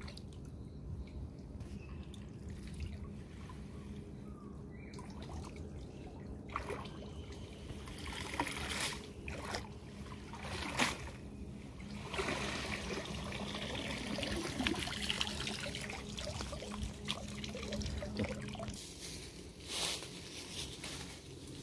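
Shallow river water splashing and trickling as hands work a gill net in it, water dripping off the net and hands. The splashing picks up several seconds in and dies away near the end.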